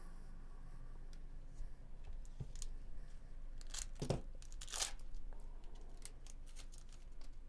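A foil trading-card pack wrapper being torn open by hand, with two sharp rips about four and five seconds in, surrounded by lighter crinkling and card handling.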